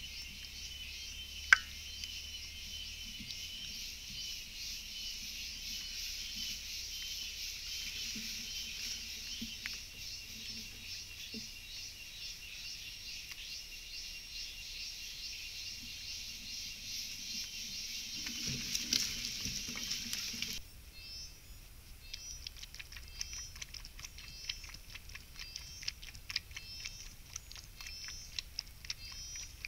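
A steady high chorus of insects buzzing for about the first twenty seconds, with one sharp click near the start. It then gives way to a quieter stretch of quick, irregular wet clicks close to the microphone: a coati lapping water from a drinking dish.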